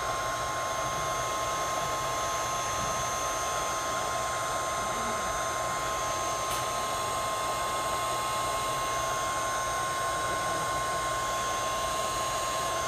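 Hot-air blower running steadily with a constant whine, warming the adhesive that holds a Samsung Galaxy S5 screen so it can be lifted off the frame.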